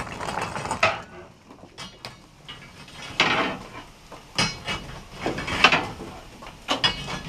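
Metallic clanks and clatter on a steam locomotive's footplate, in five short separate bursts with quieter gaps between them.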